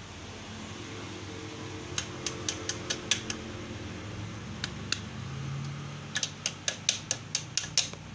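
Sharp metallic clicks of steel pliers gripping and working the pivot pin of a motorcycle double stand: a run of about seven quick clicks, two more, then a run of about nine near the end. A steady low hum runs underneath.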